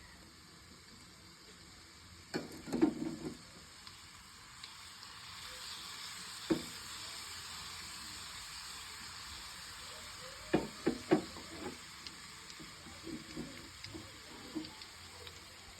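Garlic, cloves and ajwain sizzling in hot oil in a small pan, a steady hiss that swells in the middle. A spoon knocks and scrapes against the pan in short clusters.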